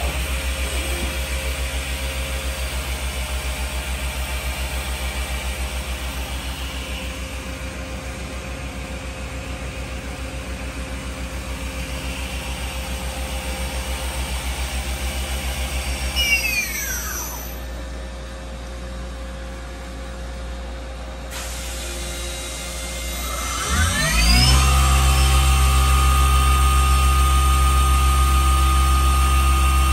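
Doosan Puma TT1800SY CNC turning center running under power with a steady mechanical hum. About halfway a spindle's whine falls away as it spins down and the sound drops. A few seconds before the end the spindle spins back up with a steeply rising whine and runs on steadily, louder than before.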